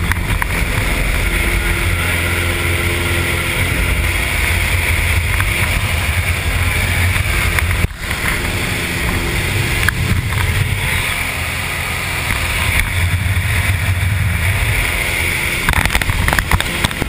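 Steady drone of a small single-engine propeller plane's engine with rushing air, heard from inside the cabin. It dips briefly about eight seconds in.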